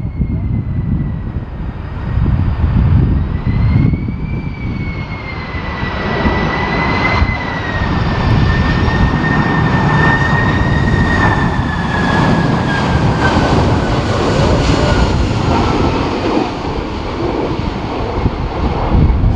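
Jet airliner on landing approach passing close by: a steady engine whine that slowly falls in pitch while the jet rush grows louder about six seconds in. Strong gusty wind buffets the microphone throughout.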